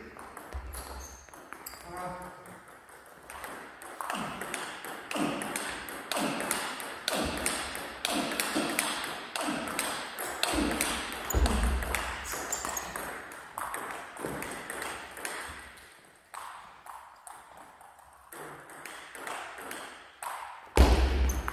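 Table tennis rallies: the plastic ball clicking back and forth between bats and table in quick runs, with short pauses between points. A loud thump near the end.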